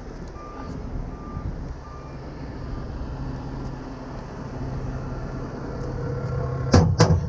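Tow truck engine idling steadily under a short electronic beep that repeats a little more than once a second and stops about three seconds in. Near the end come three loud metal clanks as the steel wheel-lift forks are handled in the truck's side compartment.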